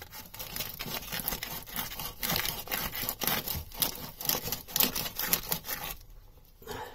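Rapid scrubbing and sanding strokes on the top of a flooded lead-acid battery, rubbing off acid residue by hand. The strokes stop about a second before the end.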